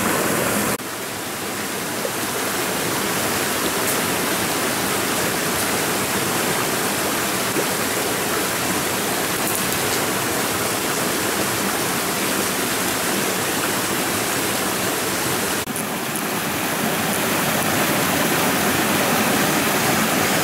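Rocky mountain stream rushing and splashing over stones and a small cascade: a steady wash of water noise. It drops abruptly about a second in, then builds back, and changes again suddenly near sixteen seconds.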